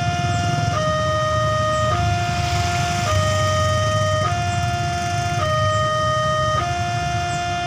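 Railway level-crossing warning alarm sounding a steady electronic two-tone signal. It switches between a higher and a lower tone a little under once a second, over the low rumble of idling motorcycle engines.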